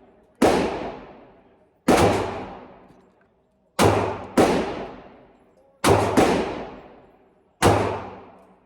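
About seven .45 ACP pistol shots fired at a slow, deliberate pace, one to two seconds apart, each followed by an echo that dies away over about a second.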